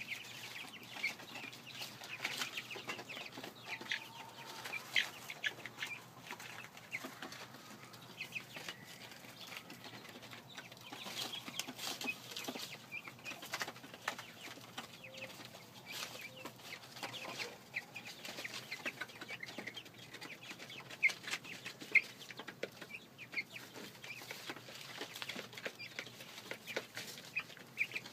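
A flock of young Red Ranger chickens clucking and giving many short high calls, with scattered small clicks and scuffles among them.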